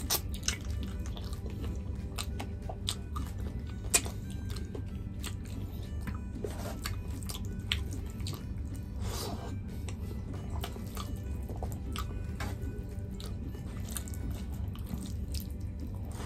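Close-up eating sounds of chicken curry and rice eaten by hand: wet lip smacks, finger licking and soft chewing, with many short clicks and one sharper smack about four seconds in.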